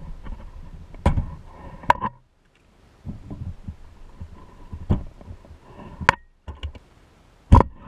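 A metal hand tool clicking, knocking and scraping against the pressed-steel body and dual wheel hub of a vintage Tonka toy truck as the wheels are worked loose, with a handful of sharp metal clicks, the loudest near the end, and rubbing and handling noise between.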